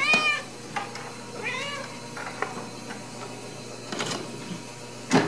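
Ragdoll mother cat meowing twice, short rising-and-falling calls, one at the start and one about a second and a half in. Two sharp knocks follow near the end, the second the loudest sound.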